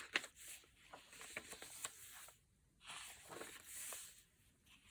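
Pages of a thick handmade paper journal being turned and handled: two short spells of paper rustling and crinkling with small clicks, separated by a brief pause.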